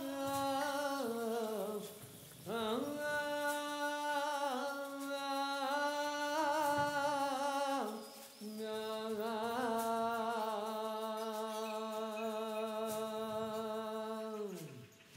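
A solo voice singing a folk tune without words, holding long notes with a slight vibrato in three phrases with short breaks between them. The last note slides down in pitch and stops near the end.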